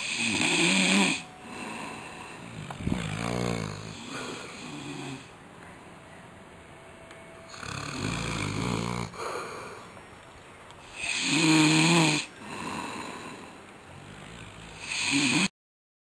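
A sleeping man snoring, about five snores a few seconds apart, the strongest at the start and near the end. The sound cuts off suddenly just before the end.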